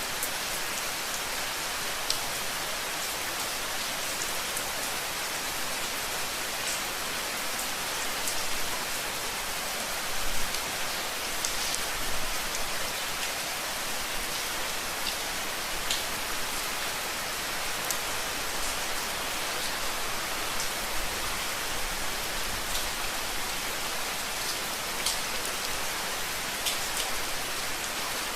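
Steady rain falling, an even hiss with scattered individual drops ticking on a surface, and a few louder drop hits about ten to twelve seconds in.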